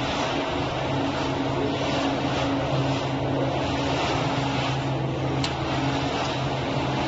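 Plastic film squeezing machine running: a steady mechanical hum with low steady tones from its motor and screw, as it presses out washed shredded film. A brief high-pitched sound about five and a half seconds in.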